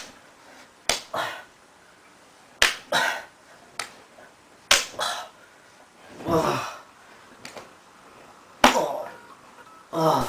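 A series of about half a dozen sharp slaps, irregularly spaced, most followed by a short pained cry or groan.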